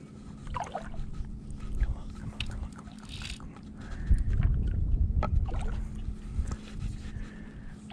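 Wind rumbling on the microphone with light sloshing of shallow water around a wading angler playing a fish, loudest about four to five seconds in, over a faint steady hum and a few small clicks.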